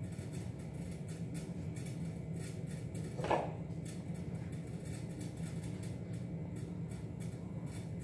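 Hands kneading soft, sticky bread dough on a stone countertop, faint squelching under a steady low hum, with one brief louder sound about three seconds in.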